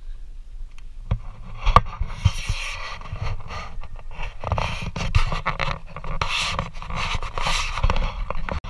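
Rumbling wind and scraping, clicking handling noise on a moving camera's microphone, irregular and starting about a second in.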